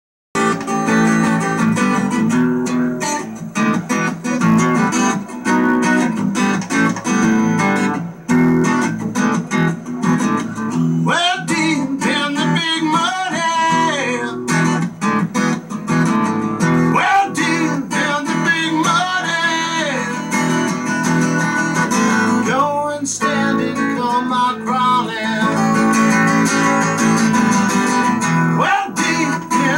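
Acoustic guitar playing a blues tune. From about eleven seconds in, a melody that slides and bends in pitch comes in over it.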